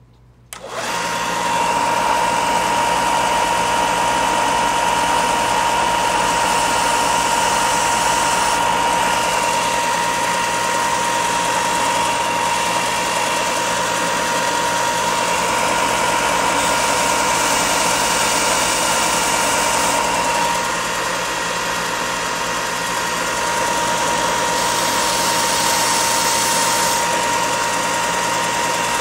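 Bench belt sander with a coarse 60-grit belt switching on and running steadily with a whine. Three times, about 6, 17 and 25 seconds in, a harsher hiss rises over it for two or three seconds as the balsa edge is pressed to the belt to grind the hinge bevel.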